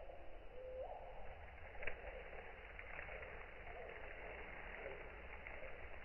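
Night forest ambience: an owl giving short hoots that rise in pitch, two clear ones near the start and fainter ones after, over a steady background hiss, with one sharp click about two seconds in.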